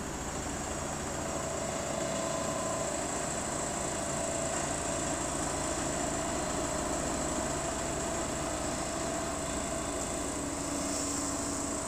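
Steady drone of a single-drum vibratory soil compactor's engine and vibrating drum, heard through window glass, with a steady high-pitched buzz over it.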